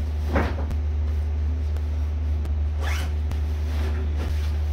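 Backpack zipper pulled closed in two quick strokes, about half a second in and again about three seconds in, over a steady low hum.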